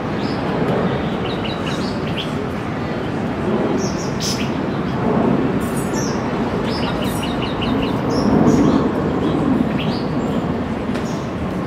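Birds chirping in short runs of quick, evenly spaced high notes, twice, over a steady loud background din.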